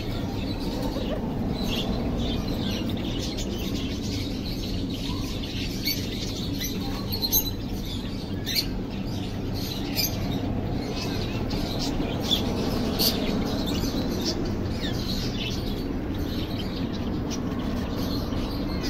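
A cage of light brown ringneck doves cooing in a low continuous chorus, with short high bird chirps scattered throughout. A few sharp taps stand out now and then.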